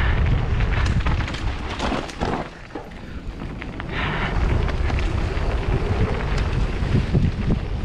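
Wind buffeting the camera microphone with a heavy low rumble and scattered knocks and rattles, easing briefly about two and a half seconds in and then coming back.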